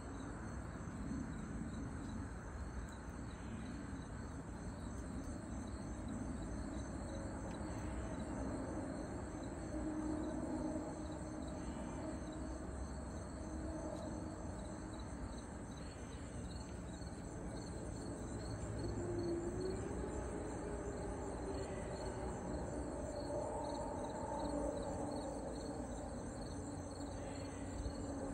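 Insect chorus trilling steadily at a high pitch, over a low background rumble.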